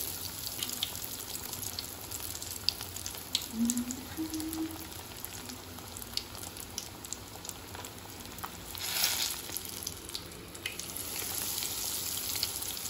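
Breadcrumb-coated potato bread rolls deep-frying in hot oil in a kadai: a steady sizzle with scattered pops and crackles, and a brief louder hiss about nine seconds in.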